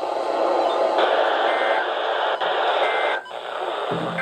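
Weather radio hiss with short EAS/SAME digital data bursts, the warbling two-tone end-of-message code that closes the tornado warning broadcast. The bursts come about every 1.3 seconds: two, with a third starting right at the end.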